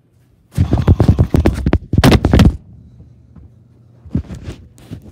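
A person hurrying on foot with the phone held close: about two seconds of loud, quick thumps and rubbing, then a few softer footsteps near the end.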